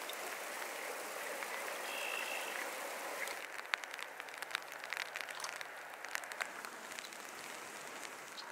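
Flowing water of a shallow trout stream: a steady rushing hiss. The sound changes a few seconds in, after which scattered small sharp ticks sound over the flow.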